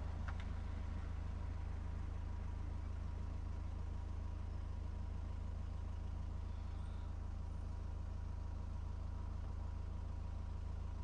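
A 2011 Ford Mondeo's 2.0 TDCi four-cylinder diesel idling steadily, heard from inside the cabin as a constant low hum.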